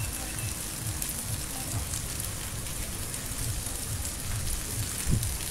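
Steady rain falling, an even hiss, with soft low thuds throughout and one louder dull thump near the end.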